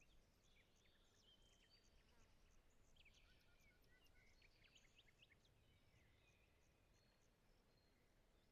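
Near silence with a faint nature background: scattered bird chirps, busiest in the middle, over an insect pulsing steadily about three times a second.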